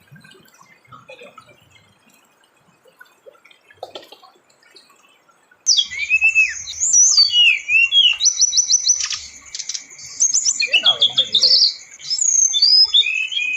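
Faint scattered sounds, then about six seconds in, loud bird song starts abruptly: quick varied whistles, rapid trills and sweeping chirps.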